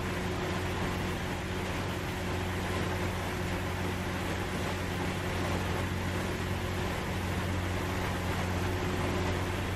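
Steady low machine hum with an even hiss over it, from a shrimp cutter's on-board machinery.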